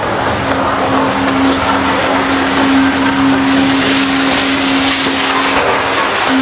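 Heavy diesel earthmoving machinery, a Volvo EC750E excavator working beside a Volvo A60H articulated hauler, running hard. It gives a loud, steady drone with a held hum that drops out briefly near the end.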